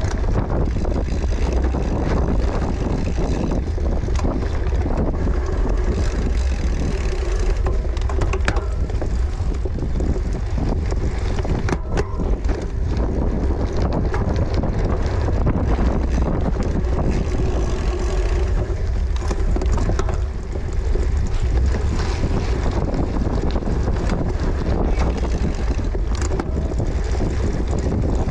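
Cyclocross bike ridden at race speed: wind buffeting the microphone over a steady low rumble, with scattered rattles and clicks.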